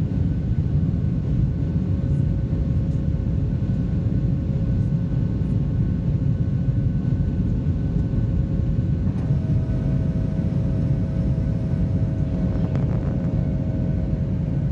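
Cabin noise of a Boeing 737-700 climbing after takeoff. Its CFM56-7B engines and the airflow make a steady low rumble with faint steady whines above it, and a further whine joins about nine seconds in.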